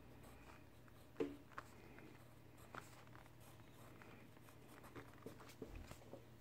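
Faint pencil strokes scratching on paper, with a sharp tap a little over a second in and a few lighter ticks later on.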